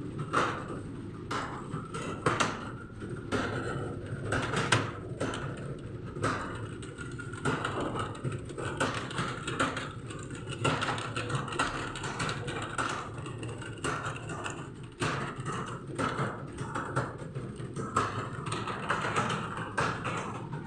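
Computer keyboard typing: quick, irregular key clicks, several a second, over a steady low background hum.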